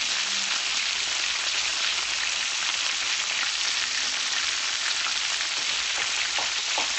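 Breaded chicken pieces frying in a skillet of hot oil: a steady sizzle with fine crackling.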